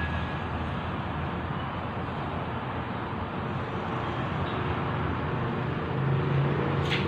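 Steady background rumble of road traffic, with a low engine hum growing louder about six seconds in.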